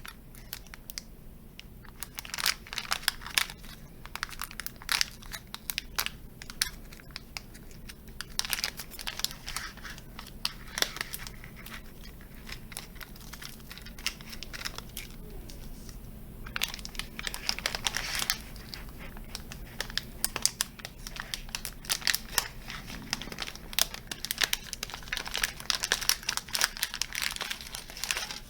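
A package's wrapping being opened and handled, crinkling and rustling in irregular crackly bursts, with two short lulls.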